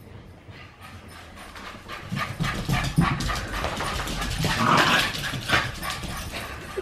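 Small dogs scampering and scrabbling about, claws clicking on a hardwood floor. It starts quietly and gets busy and louder after about two seconds.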